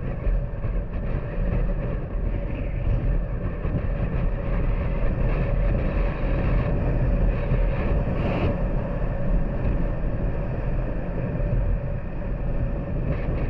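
Honda Super Cub's small single-cylinder four-stroke engine running at a steady cruise, with wind and road rumble on the bike-mounted microphone.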